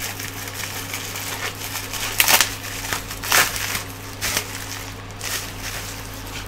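Pink plastic bubble wrap crinkling and crackling as it is handled and unwrapped by hand, with the loudest crackles about two and three and a half seconds in.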